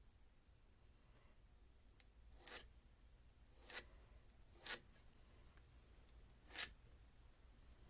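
Four short scraping strokes, irregularly spaced about one to two seconds apart, over a quiet room.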